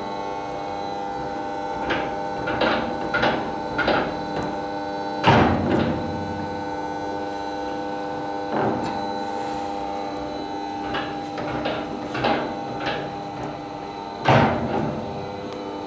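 A steady mechanical hum with irregular clicks and knocks over it, and two louder thumps about five seconds in and near the end.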